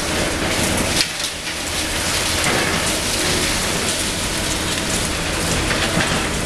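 Demolition noise from a Liebherr 954 long-front excavator at work: a steady crackling hiss of concrete rubble and debris falling and crumbling over the low running of the machine's diesel engine, with one sharp knock about a second in.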